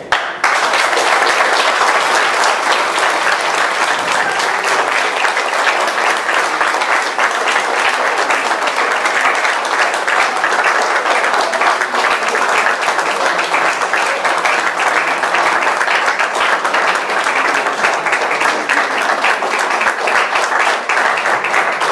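Audience applauding, breaking out all at once and holding steady with a dense patter of many hands clapping.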